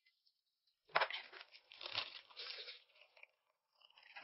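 Crunching and tearing of food being bitten and chewed close to the microphone, starting about a second in with the loudest crunch.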